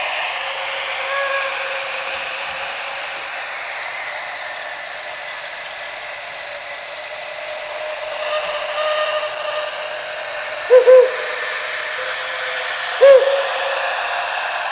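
Percussion soundscape: a steady rain-like hiss from percussion instruments imitating wind and rain, with a few short whistled bird calls near the end, two close together and then one more.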